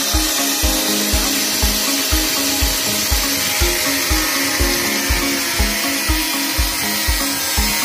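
A high-speed power tool runs steadily with a high-pitched hiss, cutting the star-lock slot in an aluminium window profile. Under it is background music with a steady beat, about two beats a second.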